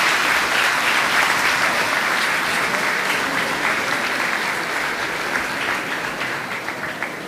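An audience applauding with many hands, slowly fading toward the end.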